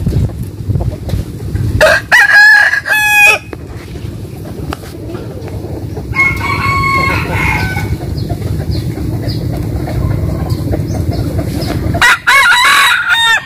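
Gamecock roosters crowing: a loud crow about two seconds in, a fainter crow from another rooster in the middle, and another loud crow near the end. A steady low rumble runs underneath.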